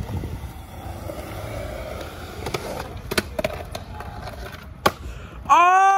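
Skateboard wheels rolling on concrete with a steady low rumble, broken by a few sharp clacks as the board meets the concrete ledge on a 5-0 grind attempt. Near the end comes a loud, drawn-out shout of "Oh!"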